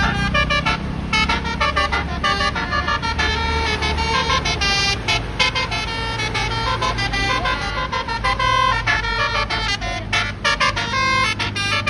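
Basuri telolet bus horn, its many trumpets playing quick melodic runs of short tones one after another, over a steady low engine hum.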